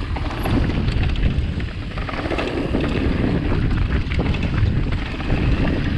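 Wind rushing over the microphone with the rumble of a mountain bike riding down a dirt trail, and a steady scatter of small clicks and rattles from the bike.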